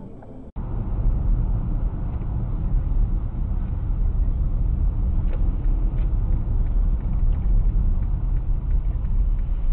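Steady low rumble of a moving car's road and engine noise, starting abruptly about half a second in after a brief dropout, with a few faint clicks.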